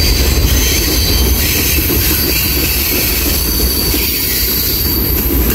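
Freight cars of a slow mixed freight train rolling past: a steady rumble of steel wheels on the rails with a thin, high wheel squeal over it.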